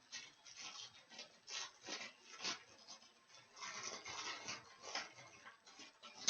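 A postal packet being opened by hand: irregular rustling and scraping of the packaging, ending on a sharp, louder rip or crackle.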